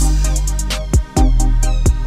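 Hip-hop beat with a heavy, sustained bass and drum-machine hits, playing between rapped lines. It drops out briefly about a second in.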